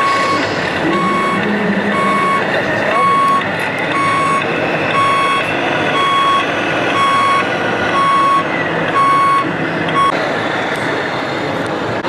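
Reversing beeper of a radio-controlled model truck: a single-pitch beep repeating evenly about once every three-quarters of a second, which stops about ten seconds in.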